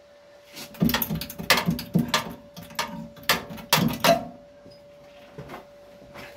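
A cut-off piece of old car floor-pan sheet steel being dragged free from behind a seam: a quick run of metallic knocks and scrapes starting just under a second in and lasting about three seconds, then a few fainter knocks.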